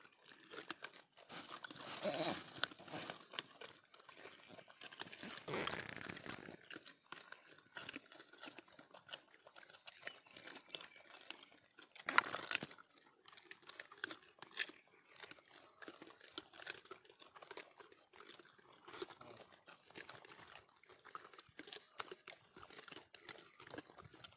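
Gray langur biting and chewing raw carrot: many short, crisp crunches, with a few louder bursts, the loudest about halfway through.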